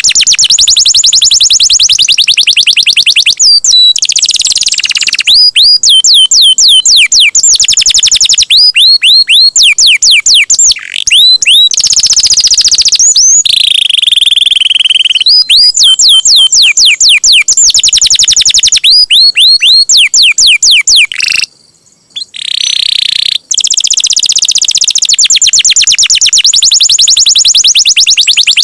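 Domestic canary singing long rolling trills: runs of very fast repeated notes alternating with series of sweeping whistled notes, with a brief break about three quarters of the way through.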